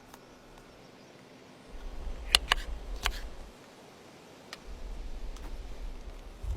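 Three sharp clicks or taps a little over two to three seconds in, with a few fainter ones later, over two stretches of low rumble.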